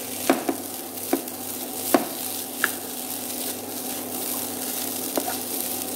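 Fried rice sizzling in a nonstick frying pan as a wooden spatula stirs and turns it, with a few sharp taps of the spatula against the pan over a steady low hum.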